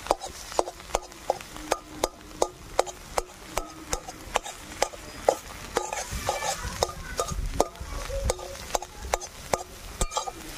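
Metal spatula knocking and scraping against a metal kadai, about two to three strikes a second with a short ring from the pan, as scrambled egg is broken into pieces and stirred. Under it is a light sizzle of the egg frying in mustard oil.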